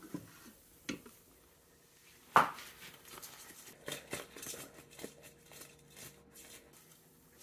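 Air fryer basket lifted out with one sharp knock, then a run of soft, irregular clicks as the half-cooked frozen sweet potato fries rattle inside the basket being shaken.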